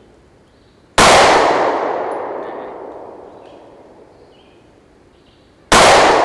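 Two shots from a Sig Sauer P365 9mm micro-compact pistol, one about a second in and one near the end, each followed by a long echo that dies away over about three seconds.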